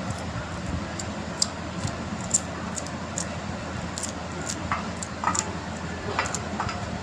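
Scattered light clinks and taps of kitchen utensils, with a few short ringing tones in the second half, over a steady low hum.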